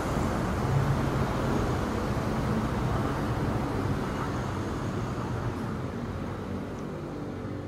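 Steady vehicle rumble with a low engine hum, slowly fading away.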